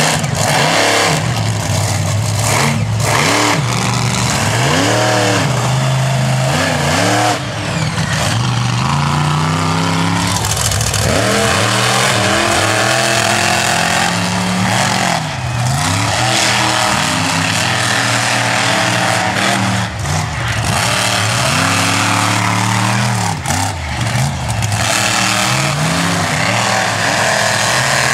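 Monster truck engines revving hard during a side-by-side race, the pitch climbing and falling back again and again as the throttle is stabbed and released.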